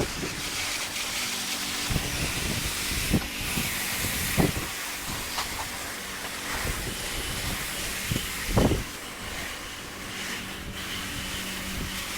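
Steady hiss of a water spray rinsing down a garage door, with gusts of wind buffeting the microphone.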